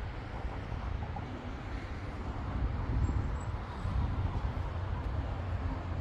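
Wind buffeting the microphone outdoors: a steady, low, fluttering rumble.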